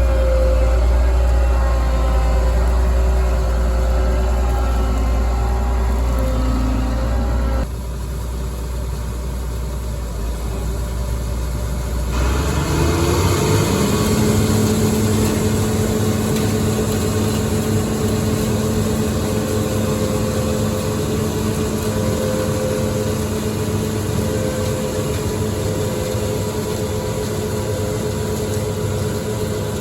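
Heavy farm machinery engine running steadily during soybean harvest. The sound changes abruptly about 8 seconds in, and again about 12 seconds in, after which a steady, higher-pitched hum holds.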